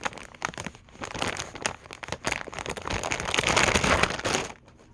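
A bag crinkling and rustling as a fidget toy is handled in it and worked out, in a run of small crackles, loudest for a stretch about three to four and a half seconds in.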